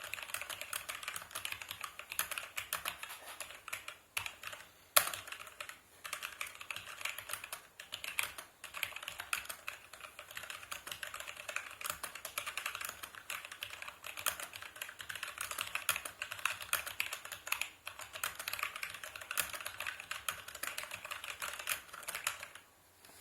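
Typing on a Logitech G413 mechanical keyboard with Romer-G switches: a fast, steady run of key clicks broken by a few short pauses, with one noticeably louder key strike about five seconds in.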